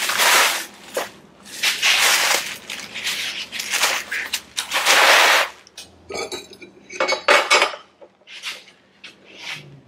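Metal parts being handled on a steel workbench: steel brackets and an aluminium-shrouded AC condenser clinking, clanking and scraping in irregular bursts. Sharper, separate clicks follow in the second half, as screws are handled and fitted.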